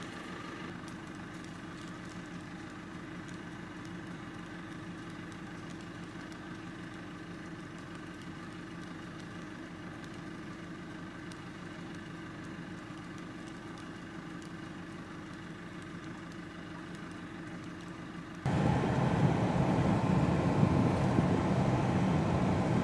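Vehicle engine and road noise heard from inside the cab while driving: a steady hum. About 18 seconds in it turns abruptly louder and rougher.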